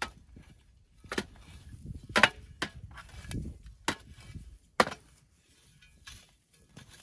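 A digging tool chopping into the soil of a garden bed: about five sharp strikes spread irregularly through the first five seconds, with rustling in between.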